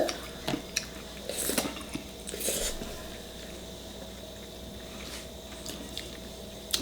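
Eating sounds: scattered clicks and taps of utensils against dishes, with soft wet chewing in between.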